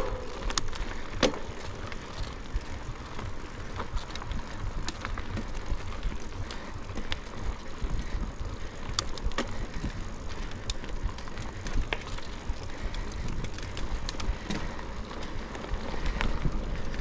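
Mountain bike riding up a long climb, heard from a camera on board: steady tyre and drivetrain noise over a low rumble, with many scattered sharp clicks and rattles.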